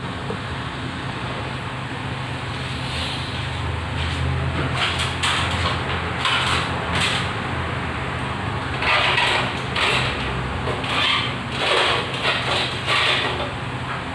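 Repeated scraping and rubbing as a fluorescent tube is twisted and worked out of its ceiling fixture, busiest in the second half, over a steady low hum.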